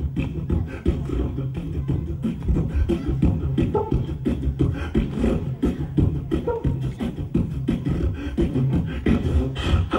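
Rhythmic vocal music in a beatboxing style, with a dense, steady, loud beat.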